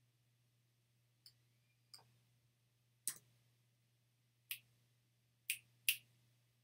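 Quiet, sharp clicks and taps of small objects being handled, six in all at irregular intervals, the last two close together and loudest, over a faint steady electrical hum.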